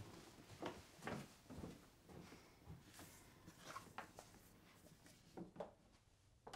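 Near silence in a quiet room, broken by faint, irregular small knocks and rustles.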